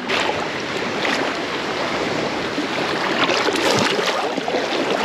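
Shallow seawater sloshing and splashing as someone wades and sweeps a dip net after blue crabs, with a few sharper splashes about three to four seconds in.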